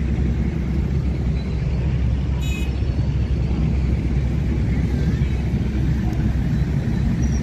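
Steady low rumble of construction machinery and road traffic at a piling site, with a short high-pitched squeal about two and a half seconds in.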